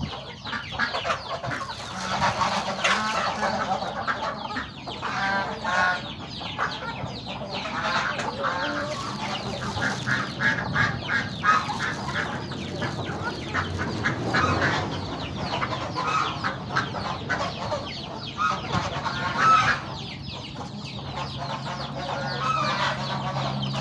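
Flock of chickens clucking continuously while feeding, with many small clicks of pecking on the floor.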